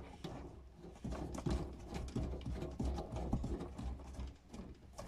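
Faint, irregular clicking and light rattling as the nut of a braided metal faucet supply hose is turned by hand onto the thread of an angle stop valve.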